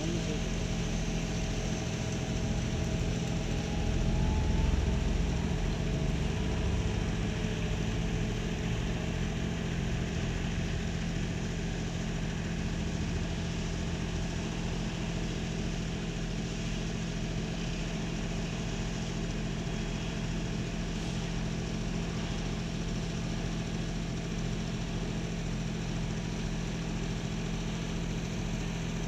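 Heavy diesel machinery engine running steadily with a constant low hum, a little louder about four to seven seconds in.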